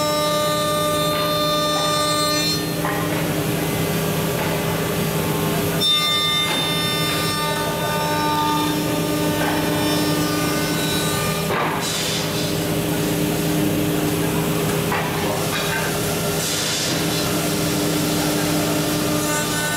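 A 5-axis CNC router's spindle whines steadily while its cutter mills a curved wooden stair-handrail blank, with the continuous rasp of the bit cutting wood. The pitch of the whine shifts a few times as the cut goes on.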